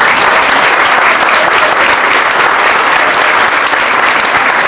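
Audience applauding: many people clapping together, dense and steady throughout.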